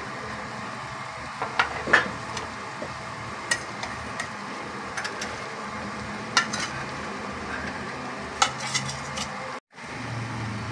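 A metal spoon scraping and clicking against a metal pan as fried fish pieces are arranged on a bed of rice, in scattered sharp taps over a steady low hiss. The sound cuts out for a moment near the end.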